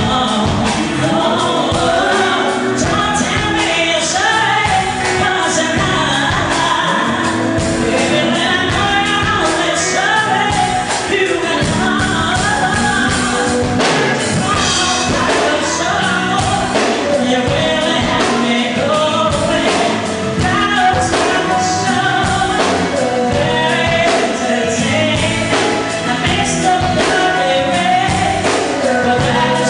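A live band plays, with a female lead singer singing into a microphone over electric guitars and keyboards, to a steady beat.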